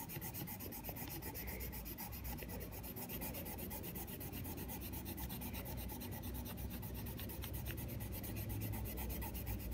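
Colored pencil shading on workbook paper: steady scratchy back-and-forth strokes as a box is colored in.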